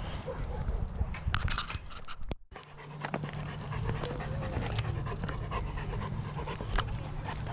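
Newfoundland puppy panting close to the microphone over a steady low rumble, with a few sharp clicks; the sound cuts out briefly about two and a half seconds in.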